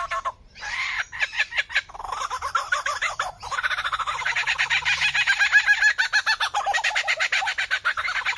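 A bird calling in a rapid, continuous stream of stuttering chattering notes, many per second, with short breaks about half a second in and again near the middle.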